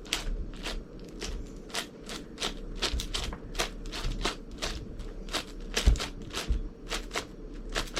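Layers of an 11x11 Rubik's cube clicking as they are turned one-handed in a speedsolve, about three quick clicks a second.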